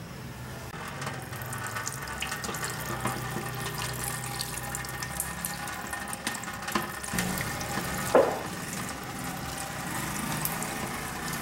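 Tap water running into a stainless steel sink as hands rinse and rub pieces of liver in a plastic basket; the flow picks up about a second in. A single sharp knock about eight seconds in.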